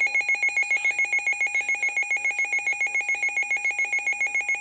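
Weather radio's electronic alert alarm sounding for a severe thunderstorm warning: a loud, rapid warbling beep of about eight pulses a second.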